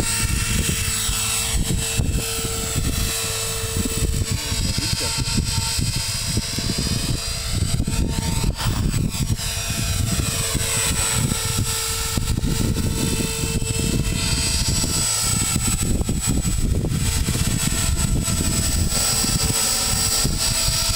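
Electric KDS 450 flybarless RC helicopter flying, its brushless motor and rotor giving a steady whine. The higher overtones swirl and shift as the helicopter changes height and distance.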